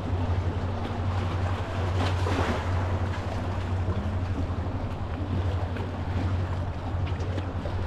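Seaside ambience: wind and water noise over a steady low hum, swelling briefly about two seconds in.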